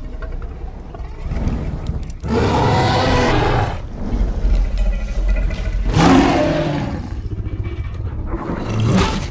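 Custom roar sound effects for a fictional Indoraptor dinosaur: a long roar starting about two seconds in, another about six seconds in, and a short one near the end, with low rumbling between them.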